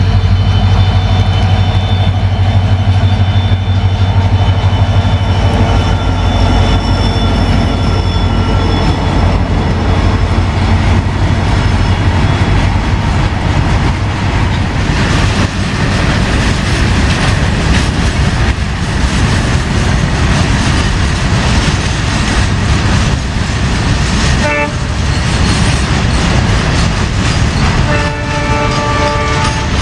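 A train passing close by. A locomotive's deep, steady engine hum comes first, then the rumble and clickety-clack of its wheels over the rail joints. The horn gives a short blast about 24 seconds in and a longer one near the end.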